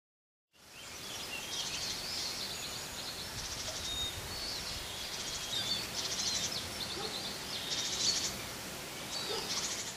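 Morning chorus of several birds singing at once, with fast trilled phrases standing out every second or two among chirps and whistles, over steady low background noise. It fades in about half a second in.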